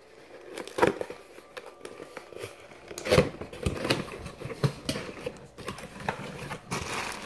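Cardboard box flaps being pulled open by hand: irregular scraping and rustling of cardboard and the crinkle of bubble-wrap packing, with sharper knocks about one second and three seconds in.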